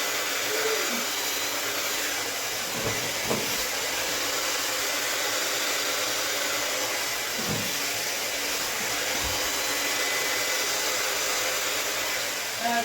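Hand-held hair dryer blowing steadily as it pushes poured acrylic paint across a canvas. Its rushing air and faint motor whine hold an even level, with a few faint low bumps.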